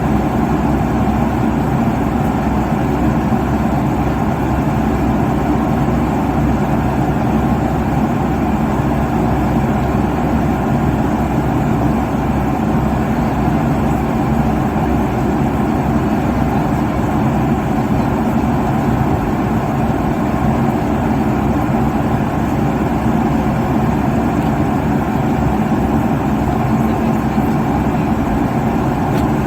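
Jet airliner cabin noise at cruising altitude: a steady, even rush of engine and airflow noise, heaviest in the low range with a faint constant hum underneath.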